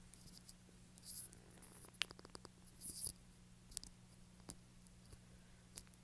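Faint, close-up ASMR trigger sounds: two short scratchy swishes, a quick run of small clicks and a few single clicks, over a low steady hum.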